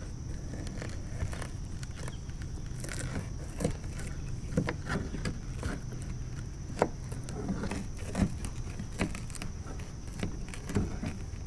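Knife cutting a skipjack herring into bait chunks on a plastic cutting board: scattered taps and crunches as the blade goes through the fish and knocks the board, over a steady low rumble.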